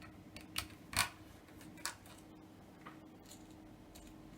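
A few light clicks of a precision screwdriver and tiny screws while the screws of an iPhone 6s battery connector plate are taken out, the loudest about a second in, over a faint steady hum.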